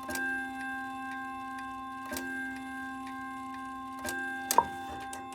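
Ridgeway wall clock's chime hammers striking its metal chime rods slowly, a strike about every two seconds, the rods ringing on between strikes over the clock's steady ticking. The strike is sluggish because one of the hammers is still sticky. A sharp click sounds about four and a half seconds in.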